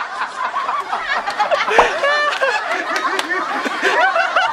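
A group of young men laughing and shrieking together, many voices overlapping with shouts and high squealing laughs.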